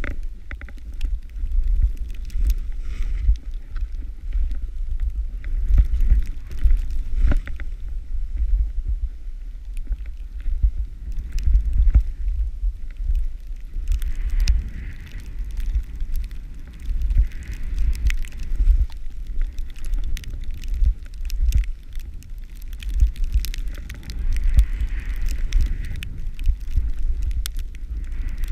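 Skis hissing through deep powder snow in waves of turns, over a heavy, gusting wind rumble on the action camera's microphone, with scattered small clicks and knocks.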